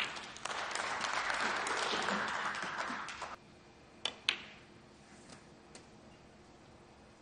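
Audience applauding for about three seconds after a pot, fading out. About four seconds in come two sharp clicks of snooker balls: the cue tip striking the cue ball, then the cue ball hitting an object ball.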